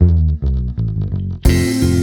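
Background music: a low, plucked line of short notes, then the full arrangement comes in sharply about one and a half seconds in.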